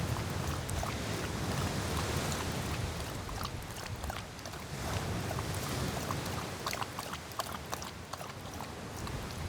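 Strong wind buffeting the microphone over the wash of surf, with many small sharp clicks and taps scattered through it.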